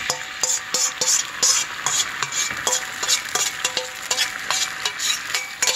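Marinade sauce sizzling as it is poured into hot oil with fried garlic in a frying pan, a steady hiss with repeated light clinks of utensils against the bowl and pan.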